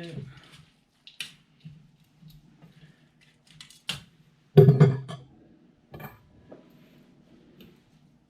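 A cooking utensil clinks, knocks and scrapes against a frying pan as the cabbage is tossed. The clinks are scattered, with the loudest cluster a little past halfway, over a faint steady low hum.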